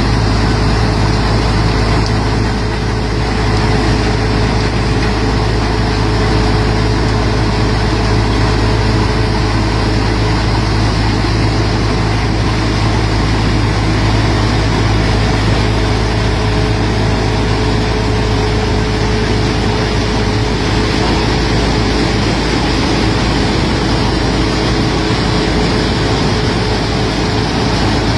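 Punni Grain Cruiser combine harvester running while cutting standing wheat: a loud, steady din of engine and machinery with a constant hum.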